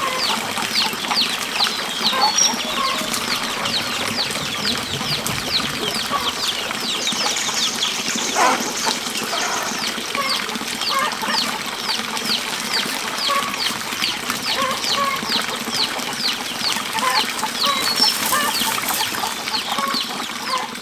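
Birds calling outdoors: a short, high downward chirp repeated steadily about twice a second, over scattered lower short calls.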